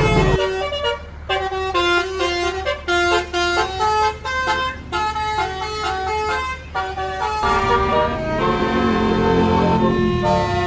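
A tour bus's basuri telolet horn playing a fast tune of short stepped notes, turning to longer held notes in the last few seconds.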